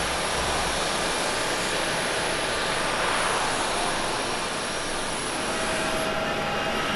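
Airbus A350's Rolls-Royce Trent XWB jet engines running at taxi power: a steady jet rush with a faint whine. The high hiss drops a little about six seconds in.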